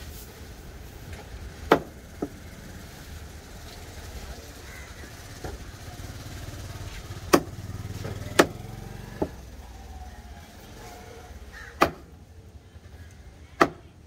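Heavy knife chopping through a large fish onto a wooden chopping block: five hard chops and two lighter ones at irregular intervals. Underneath runs a low rumble of road traffic that swells in the middle.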